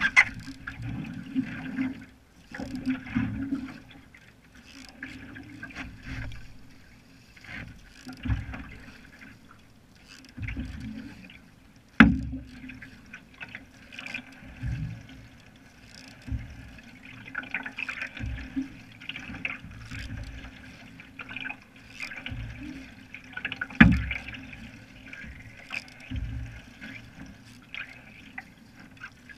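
Single-blade paddle strokes in a canoe: the blade splashes and pulls through the water about once every second and a half, in a steady rhythm. Two sharp knocks, about twelve seconds apart, are the loudest sounds.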